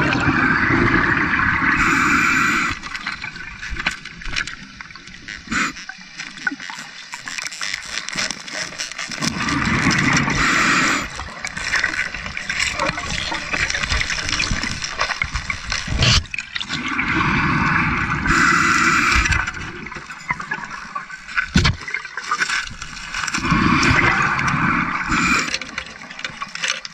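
Underwater, a scuba diver's exhaled bubbles gurgle from the regulator in four bursts of two to three seconds each, about seven seconds apart, with quieter water noise and a few clicks between them.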